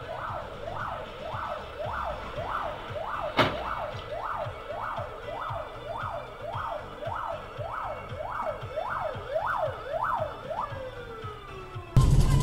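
Electronic emergency-vehicle siren on a fast yelp, sweeping up and down about twice a second. Near the end it winds down in one long falling tone. A single sharp click sounds about three seconds in.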